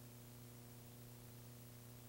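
Near silence: only a faint, steady low hum and hiss.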